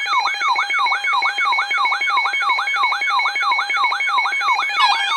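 Weather alert radio alarms sounding for an EAS Special Marine Warning: an electronic siren sweeping down in pitch about three times a second, over steady and rapidly pulsing beep tones. More tones join in near the end.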